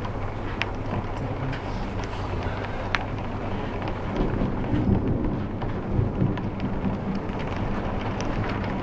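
Heavy thunderstorm rain, with now and then a sharp tap of a drop on the window glass. A low rumble swells about four seconds in and fades about two seconds later.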